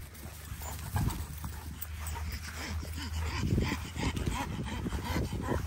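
Dogs wrestling in play, giving short, irregular growls and yips that are busiest about three to four seconds in.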